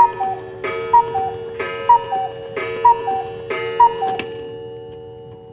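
A clock ticking about once a second, each tick a sharp click followed by a short two-note metallic ring. The ticks stop about four seconds in and the ringing fades away.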